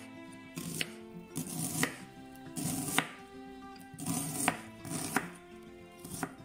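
Chef's knife slicing an onion on a wooden cutting board. About eight crisp cuts, each ending in a knock on the board, come irregularly, roughly one a second, over background music.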